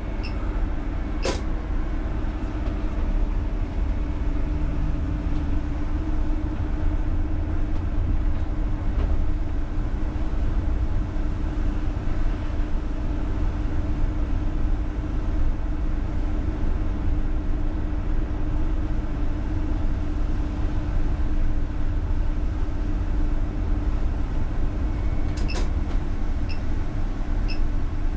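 UTTZ-6241.01 (MAZ-203T) trolleybus running along the road, heard inside the driver's cab: a low, steady road-and-drive rumble with a steady hum. A sharp click about a second in and a few small clicks near the end.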